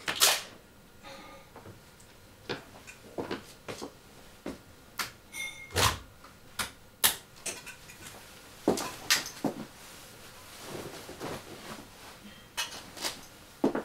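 Indoor handling and movement sounds: a loud knock at the start like a door, then a man's steps on a wooden floor and a run of sharp clicks and knocks about once a second. Near the end there is a soft rustle of clothing as a jacket is taken off and hung on a coat stand.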